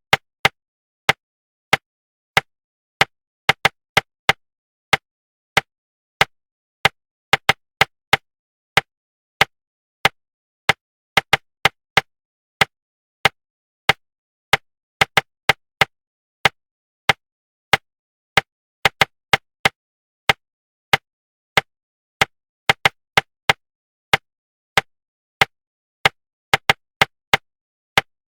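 Short, sharp knocks tapped out in an uneven rhythm of single beats, pairs and triplets, about two a second, with silence between them: a rhythm-tapping pattern of the kind used in speed-reading practice to suppress inner articulation.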